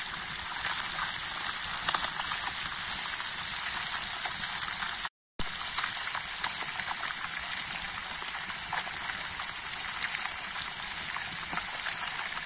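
Pieces of fish deep-frying in lard in a pan over a wood fire: a steady sizzle full of small crackles. The sound cuts out for a moment about five seconds in.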